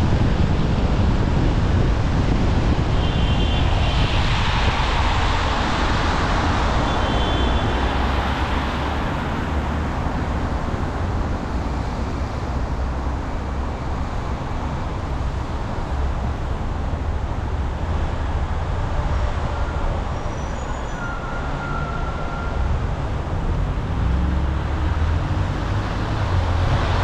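Car driving on wet city roads, with steady tyre and road noise over a low engine rumble. Brief faint high tones come about three and seven seconds in.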